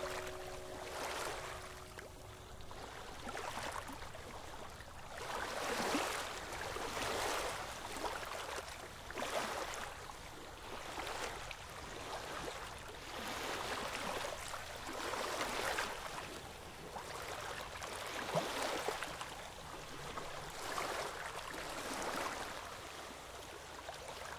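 Water washing in gentle waves, a rushing hiss that swells and fades every second or two.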